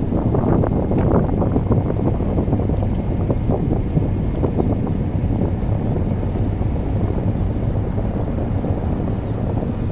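Car rolling slowly over a coarse surface of loose stone chippings: a steady rumble of tyre and road noise, with many small crackles of grit under the tyres and one sharper tick about a second in.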